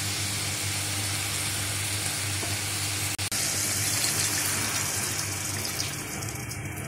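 Soaked tamarind juice poured and squeezed by hand into a pot of fish curry, the liquid splashing over the fish and masala. The pot sizzles under a steady low hum, and the pouring tails off near the end.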